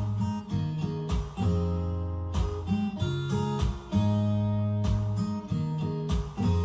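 Instrumental song intro: acoustic guitar strumming chords, sharp strokes about once a second with the chords ringing on between them.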